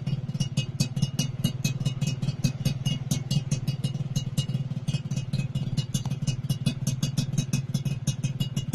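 Suzuki Satria 120's two-stroke single-cylinder engine idling steadily through an aftermarket AHM Malaysia racing exhaust, a rapid low pulsing with no revving. A regular high ticking runs over it about six times a second.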